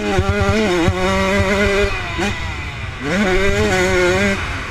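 A small off-road motorcycle engine revs up quickly and holds high revs, then drops off. About a second later it revs up and holds again. A low rumble runs underneath.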